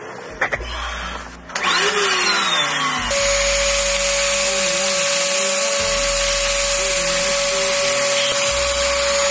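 Wet/dry shop vacuum switched on after a few clicks, about a second and a half in, then running steadily with a constant whine as its hose sucks up broken glass from the floor.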